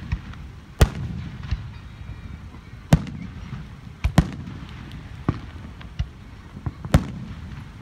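Aerial firework shells bursting: a string of sharp bangs about one to two seconds apart, the loudest near one, three, four and seven seconds in, with a low rumble between them.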